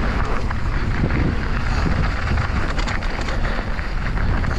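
Mountain bike rolling downhill on a loose gravel trail: steady wind noise on the microphone over the rumble and crunch of the tyres, with scattered small clicks and knocks from bumps.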